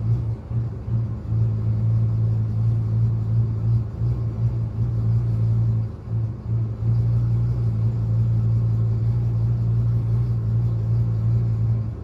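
1999 Ford F-350's 6.8-litre V10 idling with a steady low hum whose level dips and recovers several times, most deeply about six seconds in: the uneven idle of the misfire and idle surge the owner is trying to track down.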